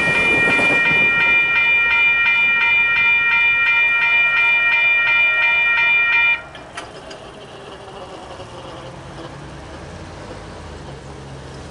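Railroad crossing warning bell ringing in a rapid, steady rhythm, then cutting off suddenly about six seconds in as the train clears and the gates start to lift. After that, only a faint low traffic hum.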